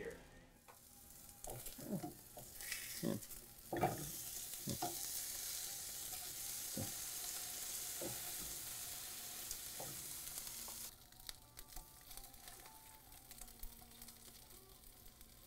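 Burger patties sizzling in a frying pan, with a few short knocks and scrapes of a spatula against the pan. The sizzle stops suddenly about eleven seconds in.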